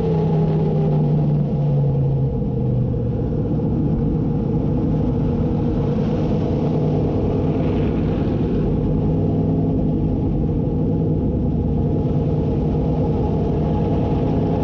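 358 small-block V8 of a dirt modified race car, heard from inside the cockpit, as the car slows from about 60 to 35 mph. The engine note falls over the first couple of seconds, then runs at a steady, lower pitch.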